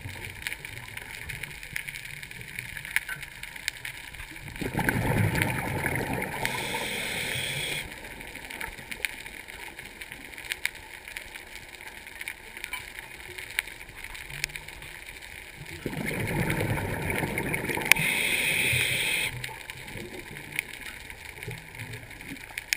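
Underwater recording: two loud bursts of bubbling, each about three seconds long and roughly eleven seconds apart, over a faint steady crackle.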